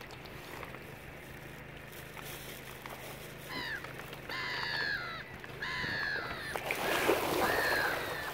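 Gulls calling: a run of about five downward-slurring calls starting about three and a half seconds in, over a steady low hum. A brief rush of noise comes near the end, the loudest moment.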